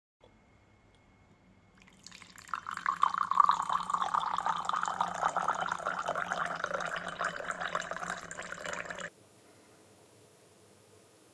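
Liquid being poured into a vessel. It starts about two seconds in and cuts off abruptly after about seven seconds.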